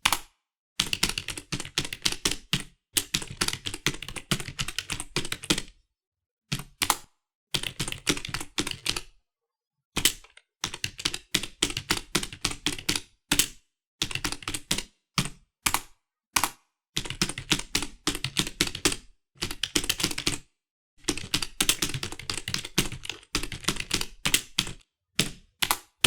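Typing on a computer keyboard: runs of rapid key clicks broken by short pauses of total silence, with single key strikes in between.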